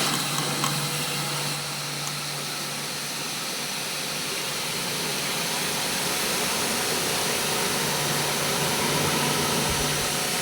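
A motor running steadily, with a low hum and a constant hiss.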